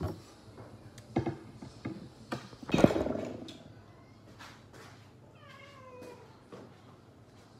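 Pomelo pith and peel being torn and handled by hand: a few short snaps and rustles, the loudest about three seconds in. Once, about five and a half seconds in, a cat meows with a falling pitch.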